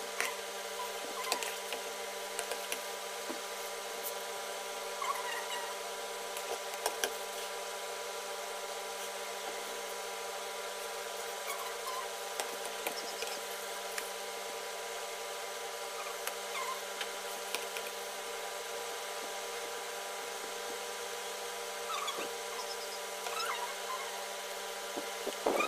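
A small motor's steady hum, made of several even tones. Scattered light clicks and a few short squeaks sound over it.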